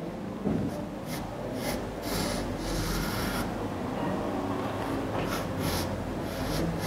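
Pencil scratching across drawing paper in short, irregular sketching strokes, with a longer run of strokes about two seconds in.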